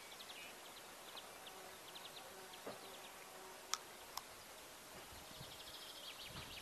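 Faint outdoor ambience of insects chirping in the grass in short, high, evenly repeated ticks, growing denser near the end. Two sharp clicks about half a second apart stand out just after the middle.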